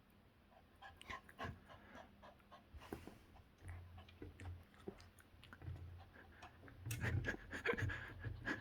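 A puppy panting, with scattered scratchy clicks and rustles that grow busier and louder near the end.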